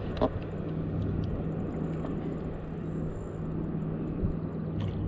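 Steady low hum of a boat motor running under the fishing, with an even haze of wind and water noise and a couple of faint knocks.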